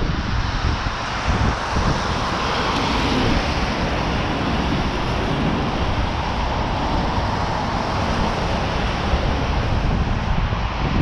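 Steady traffic noise of a wide city avenue: cars passing on wet, slushy asphalt, with a low rumble beneath.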